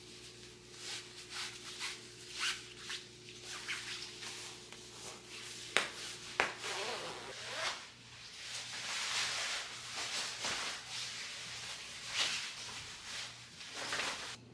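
Hands handling household things: repeated short rubbing and brushing strokes, with two sharp clicks about six seconds in.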